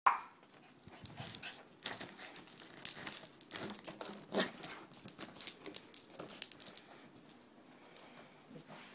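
Yorkshire terrier playing with a foil balloon: irregular crinkling, rustling and tapping of the balloon as the dog pounces on and noses it, with short sounds from the dog. The crackling is busiest in the middle and thins out near the end.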